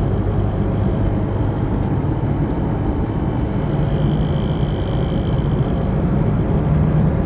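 Chevrolet S10 pickup heard from inside the cab at highway speed in sixth gear: a steady low drone of engine and road noise. A faint high whine swells for a second or so in the middle. The driver takes the drone, which grows with the revs, for an abnormal noise.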